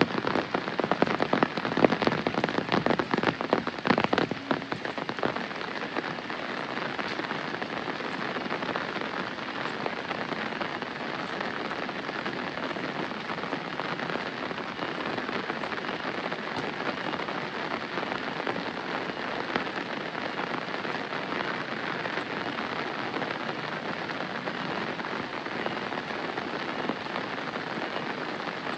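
Steady rain falling, an even hiss of countless drops. For the first five seconds or so, louder close drops patter over it, then the rain settles into a constant wash.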